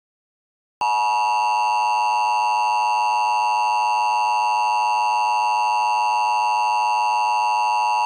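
Emergency Alert System attention signal: a loud, perfectly steady two-tone alarm that starts about a second in after a brief silence and holds without change.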